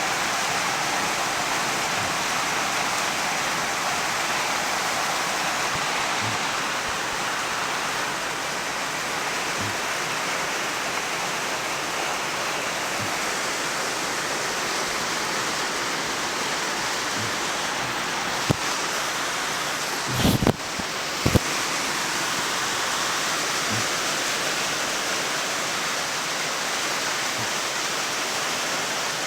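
Heavy rain pouring down steadily, with a few brief knocks about two-thirds of the way through.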